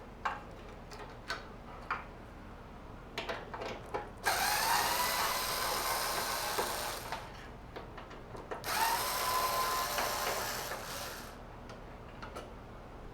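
Cordless driver spinning screws out in two runs of about three seconds each. Its motor whine rises as it spins up, then holds steady. A few small clicks come before the first run.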